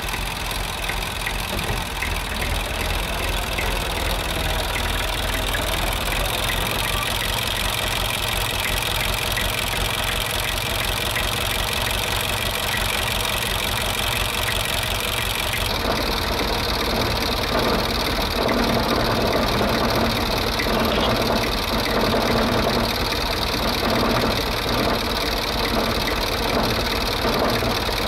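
Farm tractor engine running steadily at low revs with a rhythmic knocking clatter. About two-thirds of the way through the sound changes abruptly to a closer, more pronounced clatter.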